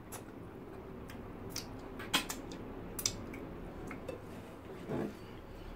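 Close-miked eating sounds from people eating soft starch and fish pepper soup with their hands: chewing and lip smacks, with about half a dozen short sharp clicks scattered through and a brief hum near the end.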